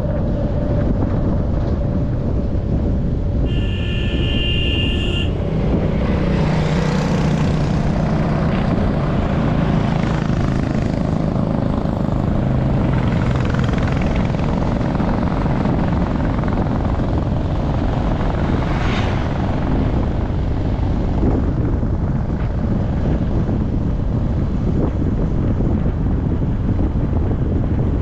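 Steady rumble of a vehicle travelling along a paved road, with wind buffeting the microphone. About four seconds in, a high steady tone sounds for nearly two seconds, and a lower engine hum swells briefly a couple of seconds later.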